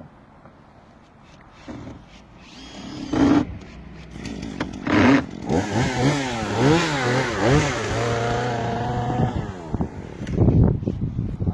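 Chainsaw's two-stroke engine revving up and down several times, then holding a steady pitch for about a second before it drops off. Two short loud bursts come before it, and another near the end.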